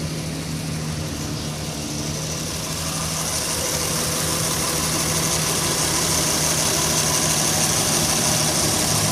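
Honda Odyssey's 3.5-litre V6 engine idling steadily under the hood, with a high hiss that builds about three seconds in and then holds.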